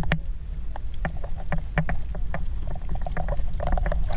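Underwater sound through a submerged camera: a steady low rumble of moving water with many short, irregular clicks and pops scattered through it.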